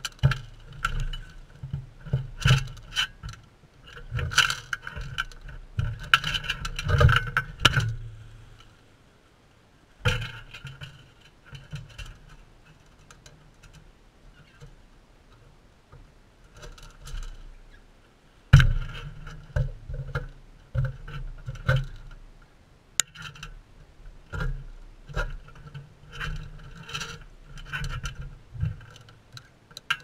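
Sulphur-crested cockatoos and a crimson rosella pecking and scraping at seed in a metal feeding dish, with irregular clicks, taps and scrapes of beaks and feet, busy at first, then sparse for several seconds in the middle before picking up again.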